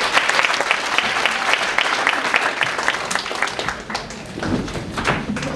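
Audience applauding, a dense patter of many hands clapping that thins out about four seconds in.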